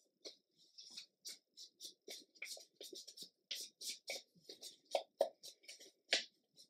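Paper craft materials being handled: a run of short, irregular rustles and crinkles, about three a second, as pieces of paper and lace are picked up and laid on the page.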